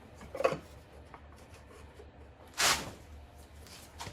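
Plastic oil filter parts being handled and fitted by hand: a light knock about half a second in, then one brief, louder scraping rustle near the middle.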